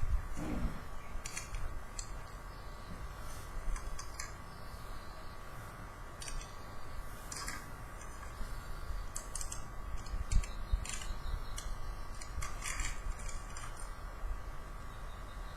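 Small hard plastic toy parts being handled, giving irregular light clicks and taps over a steady background hum.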